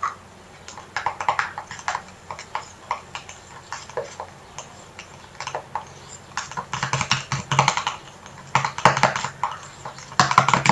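A metal utensil stirring thick cream in a small stainless steel bowl, making rapid, irregular clicking and scraping of metal on metal in uneven bursts that get busier in the second half. It is mixing in a powder just added to the cream.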